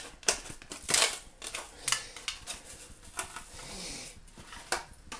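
Thin aluminium foil takeaway container being handled and set on a worktop: irregular crinkles and sharp clicks of the foil, with a louder click about a second in.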